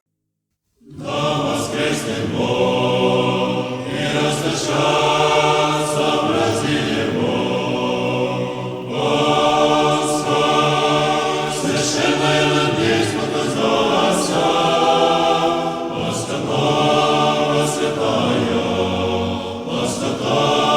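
Orthodox church choir singing a liturgical chant in sustained, many-voiced chords, starting about a second in. The phrases last about two seconds each, with short breaks between them.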